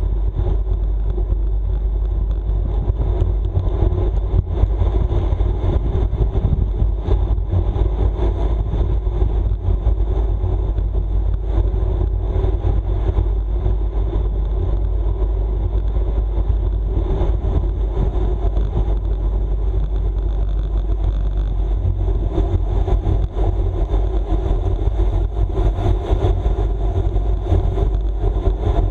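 Steady wind rush and road rumble from a racing bicycle ridden at race speed, with a faint high steady whine over it.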